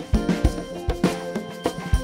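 Outro music with a steady drum beat.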